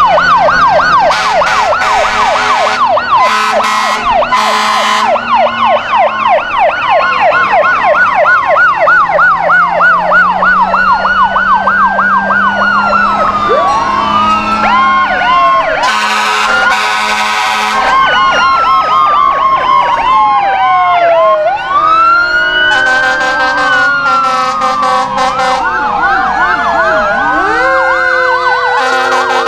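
Several fire engine sirens sounding at once, fast yelping sweeps overlapping slower rising and falling wails. Loud horn blasts cut in a few times: near the start, about halfway through, and toward the end.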